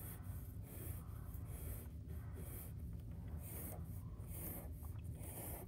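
Black felt-tip marker drawing quick straight strokes on paper: a series of short, faint scratchy swipes about one a second as the cat's whisker lines go down.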